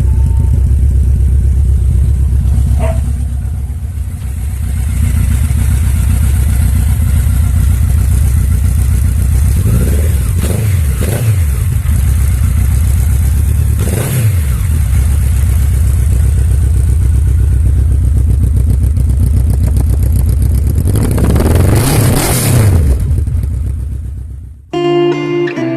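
Honda CB1300 inline-four running through a modified stock exhaust, holding a steady loud drone with several quick throttle blips that rise and fall in pitch. Near the end the engine sound cuts off and guitar music starts.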